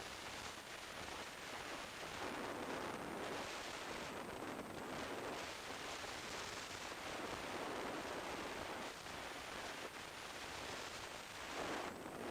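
Rushing wind noise on the microphone of a camera mounted on a moving motorcycle, rising and falling in waves, with no clear engine note standing out.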